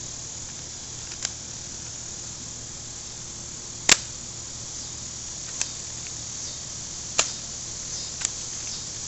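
M74DP airsoft gun in spring-powered mode firing single shots: five sharp snaps spaced one to two and a half seconds apart, the loudest about four seconds in.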